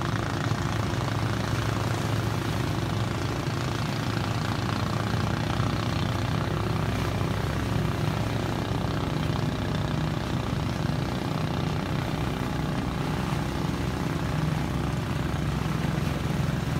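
Engine running at a steady speed: an even low drone that does not change in pitch or loudness.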